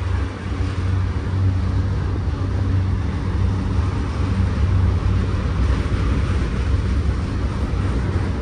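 Freight train of autorack cars rolling past on the grade: a steady low rumble of wheels on rail with a broad rushing noise over it.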